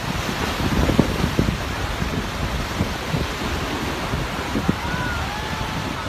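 Surf breaking and washing up a sandy beach, with wind buffeting the microphone in a low rumble. Faint distant voices of people playing in the water show up briefly near the end.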